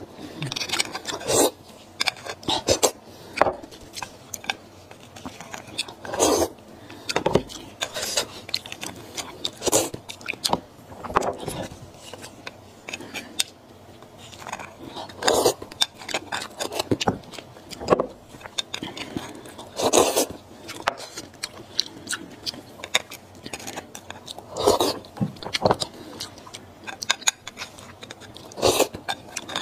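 Close-miked eating sounds: a metal knife scraping marrow out of a sawn section of beef bone, with chewing in between, in irregular short bursts.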